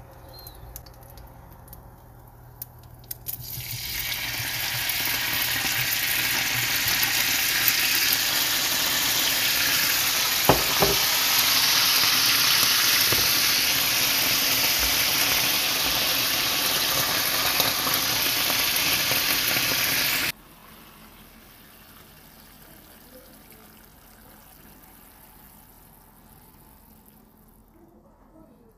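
Steak sauce sizzling and bubbling hard in a hot frying pan with the steak's juices. The loud hiss starts a few seconds in, holds steady, and cuts off abruptly about two-thirds of the way through.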